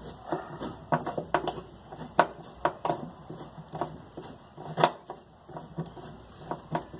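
A 12 mm metal socket wrench turning and loosening bolts on a washing machine's steel brake-actuator mounting plate, giving irregular metallic clicks and clinks. A few sharper knocks stand out, the loudest about two seconds in and again near five seconds.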